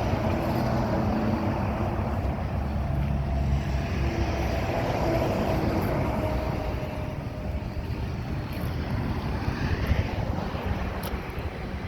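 Wind buffeting the microphone over a steady low rumble, with a faint engine hum that fades out about two-thirds of the way through.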